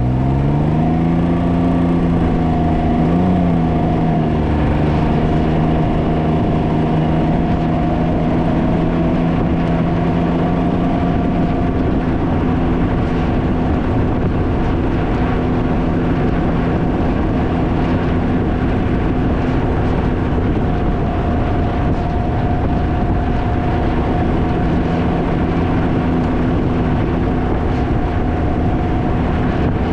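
Can-Am Ryker three-wheeler's engine running under way, its pitch climbing in the first second or two, then holding steady at cruising speed. Heavy wind noise buffets the microphone throughout.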